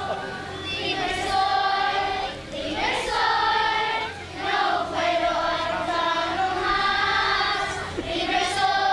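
Children's choir singing, long held notes with short breaks between phrases.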